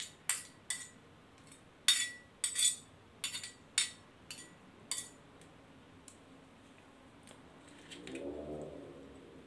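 A metal spoon clinking and scraping against a plate of curry paste: about ten sharp clinks over the first five seconds, then quieter.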